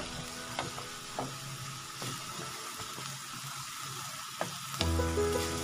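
Boneless chicken pieces with onion and green chillies sizzling as they fry in a pan of sauce, with a few light knocks.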